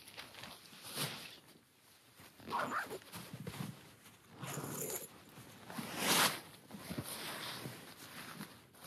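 Synthetic fabric of a sleeping bag and groundsheet rustling in irregular swishes as they are shaken out and spread on the tent floor. The loudest swish comes about six seconds in.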